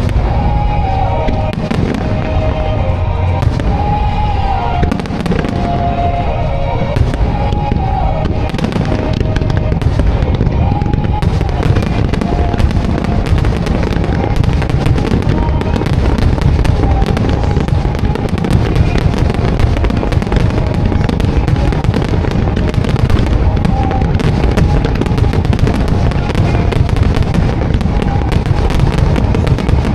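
A musical starmine fireworks barrage: a rapid, continuous run of shell bursts and crackling, thickening into a denser volley after about ten seconds. The show's accompanying music plays under it, its melody clearest in the first several seconds.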